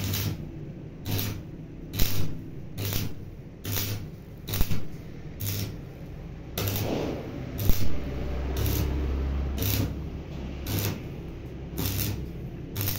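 Stick arc welding on steel tubing: the electrode's arc crackles in short spurts about once a second, each with a low hum, as the arc is struck and broken again and again.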